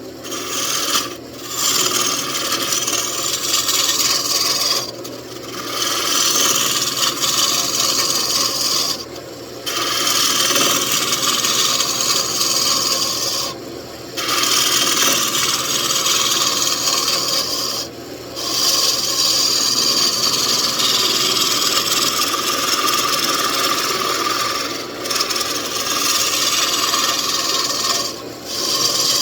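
A roughing gouge cutting a mahogany table leg spinning on a wood lathe, tapering the end: a steady hissing scrape of wood being shaved. It breaks off briefly about every four seconds.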